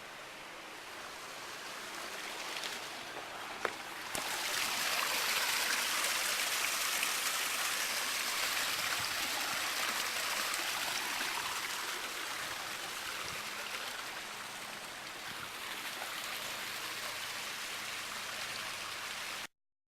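Water splashing down a boulder waterfall into a pool, a steady rush that grows louder about four seconds in and cuts off suddenly near the end.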